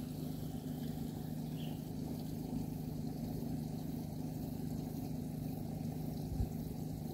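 A small engine running steadily at one constant pitch, with a couple of soft knocks near the end.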